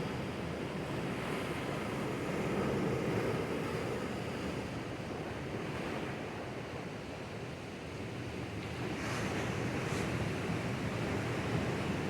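Sea waves washing over rocks: a steady rush of surf that eases off about two thirds of the way through, then swells again.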